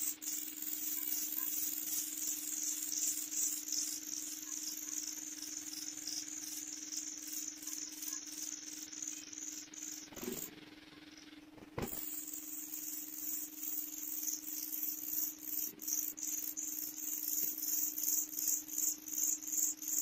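Pied bushchat nestlings begging: rapid, repeated high-pitched squeaks that start abruptly as a parent reaches the nest, break off for about a second and a half, then resume as the other parent feeds them. A low steady hum runs underneath.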